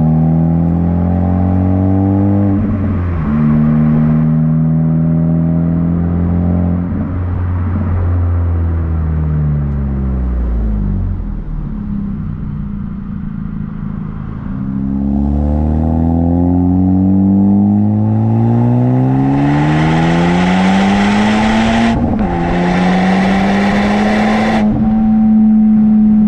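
2020 Honda Civic Type R FK8's turbocharged 2.0-litre four-cylinder, muffler and resonator deleted, revving up through the gears with sudden pitch drops at the shifts. It falls back to a low steady note, then pulls hard again, with a hiss joining in at the top of the climb.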